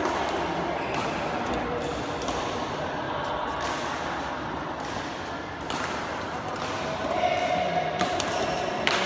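Badminton rackets striking a shuttlecock: sharp clicks, the clearest two about a second apart near the end, over a background murmur of voices in a large sports hall.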